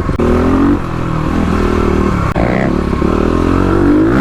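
Kawasaki KLX351 big-bore single-cylinder dirt bike engine under way on a trail, the revs rising and dropping again and again as the rider works the throttle and gears, with a quick rev climbing sharply near the end.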